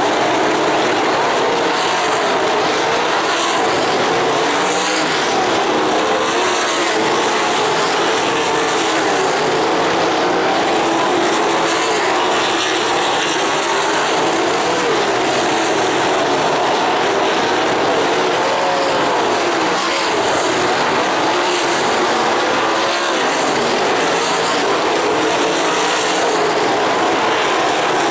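A pack of winged sprint cars racing on a dirt oval, their V8 engines running loud and continuous. The pitch rises and falls again and again as the cars work around the track.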